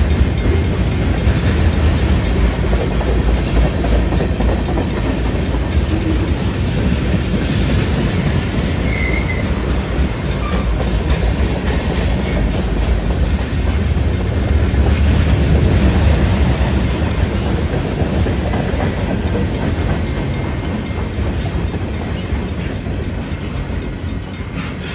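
Mixed freight train cars rolling past: a steady low rumble with the wheels clacking over the rail joints, easing off slightly near the end.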